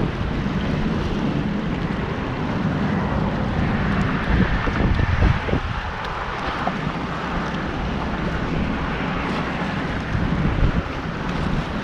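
Wind blowing across the microphone: a steady, uneven low rush that grows a little louder between about four and five and a half seconds in.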